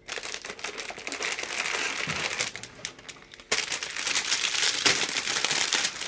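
Clear plastic bags wrapped around plastic model-kit parts runners crinkling as they are handled and lifted out of the box. There is a short lull about three seconds in, then louder crinkling.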